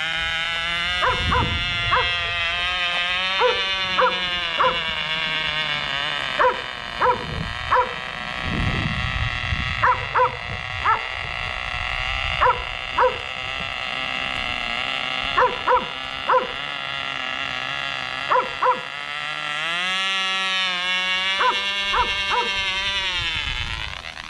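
The small two-stroke glow engine of a Cox model helicopter running at a high, buzzing pitch that wavers up and down, climbing about four-fifths of the way in and then dying just before the end. The uploader suspects the spinning pulls the fuel away from the pickup tube. A dog barks sharply over it, about twenty times.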